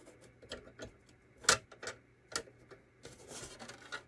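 Light clicks and taps of hard plastic as a Calico Critters grocery market playset is handled and turned around, with two sharper knocks about a second and a half and two and a half seconds in.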